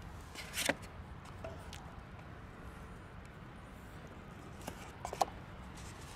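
A tin can of cat food handled and tapped as the food is emptied onto a plastic plate: a short scrape about half a second in, then a few sharp metallic clicks and a brief clink about five seconds in, over a steady low background rumble.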